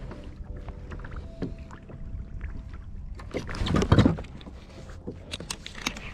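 Fishing kayak on the sea: water sloshing and knocking against the plastic hull, with scattered clicks and a low rumble of wind on the microphone, and a louder surge of noise about four seconds in.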